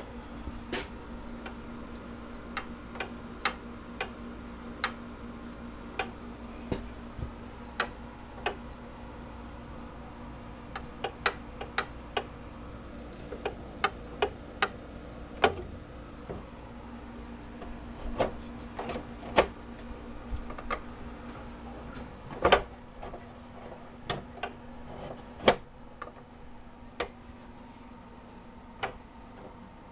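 Small electric motor of a scratch-built scale dump trailer's bed lift running with a steady hum, with irregular sharp clicks and ticks throughout. The hum stops with a louder click a little past two-thirds of the way through.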